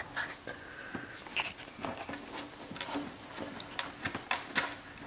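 Faint, scattered clicks and taps of hands handling screws and a washer against a plastic bumper cover while fitting a part.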